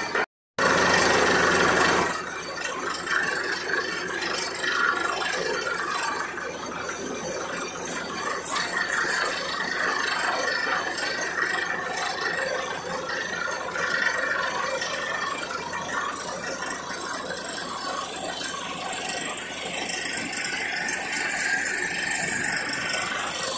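Borewell drilling rig running: a steady, dense mechanical rattle over engine noise. The sound drops out briefly near the start, returns louder for a moment, then settles.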